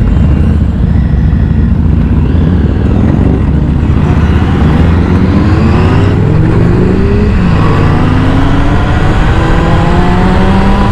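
Motorcycle engines on the move, with wind rumble; one engine accelerates, its pitch rising for a few seconds, dropping at a gear change midway, then rising again.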